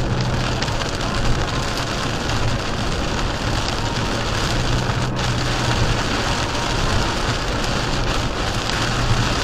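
Heavy rain hitting a car's windshield and roof, heard from inside the cabin at highway speed, a steady dense hiss mixed with tyre spray off the wet road. A low hum comes and goes underneath.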